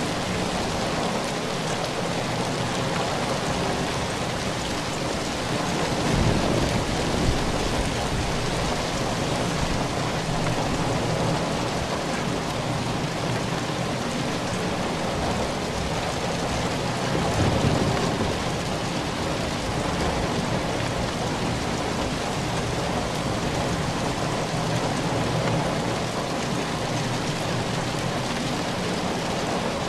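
Steady heavy rain falling, with two low rumbles of thunder swelling up, about six seconds in and again about seventeen seconds in.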